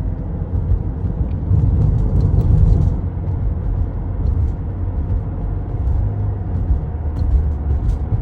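Car being driven at about 45 to 50 mph, with a steady low rumble of engine and road noise.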